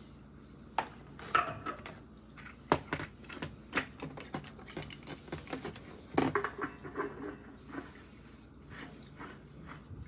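Irregular light clicks and metallic clinks of brass pipe fittings being handled, densest about a second in and again around six seconds in.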